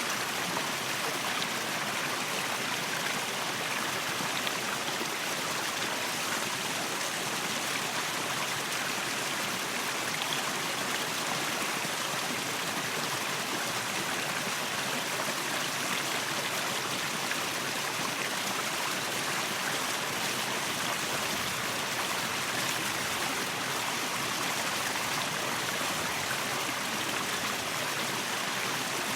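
Waterfall: falling water rushing and splashing, a steady full hiss with no change.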